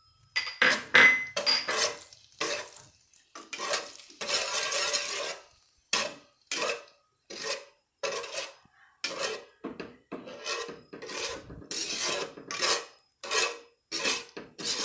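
Slotted metal spatula scraping and stirring in a pan, mixing turmeric powder and salt into hot coconut oil, in quick repeated strokes about two a second.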